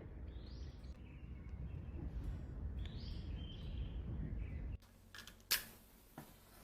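Small birds chirping twice over a steady low outdoor rumble. About five seconds in the sound cuts to near quiet, and a sharp click follows.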